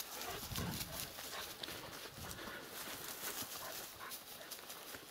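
Footsteps and rustling through dry grass and brush, with scattered crackles and clicks, as a person walks with dogs.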